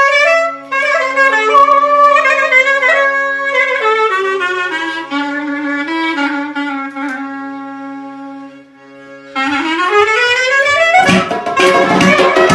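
Music: a reedy wind-instrument melody over a held low drone. About 9.5 s in, a rising glide leads into fuller, denser music.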